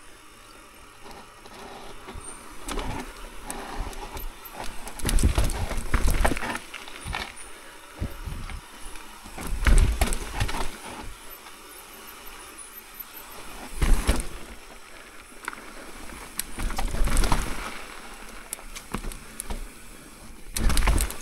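Mountain bike riding down a dirt singletrack trail: tyres rolling over dirt and rock, the bike rattling over bumps, with wind buffeting the helmet microphone in several louder surges.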